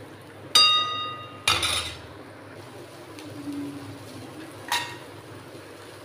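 A metal ladle clanks against a metal kadhai with a ringing note about half a second in, followed by a short scrape through the sprouted moong. A lighter clink of the ladle on the pan comes near the end.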